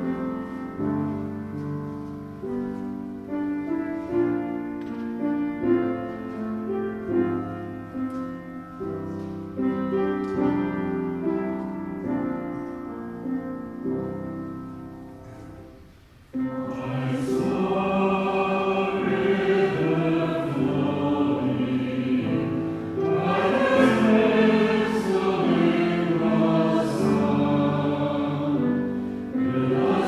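Piano playing a slow hymn tune that fades out about halfway through. A congregation then comes in together, singing the hymn in unison and parts with the keyboard accompaniment.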